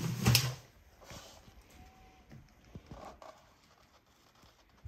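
A loud rustle in the first half-second, then faint scattered taps and small movement sounds.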